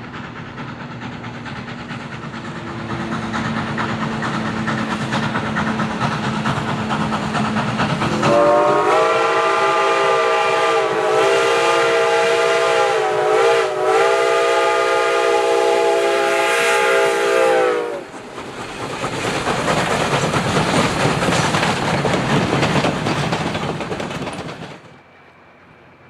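White Pass & Yukon Route steam locomotive No. 73, a 2-8-2 Mikado, working past with its train: steady exhaust and running noise that grows louder, then one long whistle blast of about ten seconds, several notes at once, wavering briefly in the middle. The running noise carries on after the whistle stops and fades near the end.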